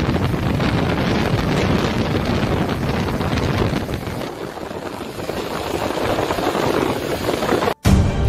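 Wind buffeting the microphone from a vehicle moving through heavy rain, a steady rushing noise of wind and rain. Near the end it cuts off abruptly and music begins.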